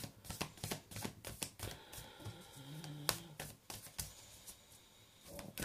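A deck of reading cards being shuffled by hand: soft, irregular card clicks and flicks. A short low hum comes about halfway through.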